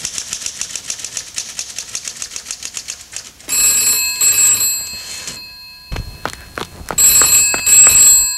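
Manual typewriter keys clacking rapidly for about three and a half seconds. Then a telephone bell rings twice, with a few knocks between the rings.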